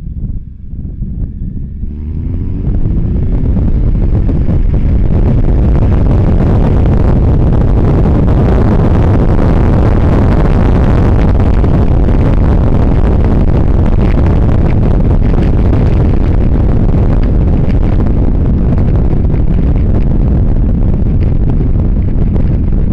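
Kawasaki GTR1400's inline-four engine rising in pitch as it accelerates about two seconds in, then heavy steady wind noise buffeting the camera's internal microphone at road speed, with the engine running underneath.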